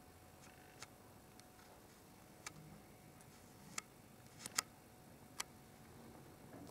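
A handful of faint, sharp clicks at uneven intervals over near-silent room tone. The loudest comes as a close pair about four and a half seconds in.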